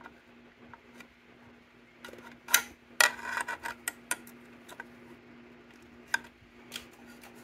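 Light metal clicks and taps from the throttle linkage being worked by hand on a Vespa P200E's carburetor, irregular, with a quick cluster of them about three seconds in. A faint steady hum underneath.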